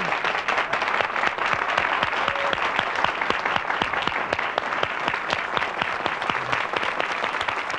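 Audience applauding: a dense, steady wash of many hands clapping.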